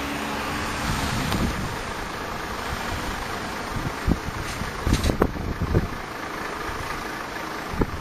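Street traffic noise: motor vehicles running on the road beside the sidewalk, a steady wash of engine and road sound.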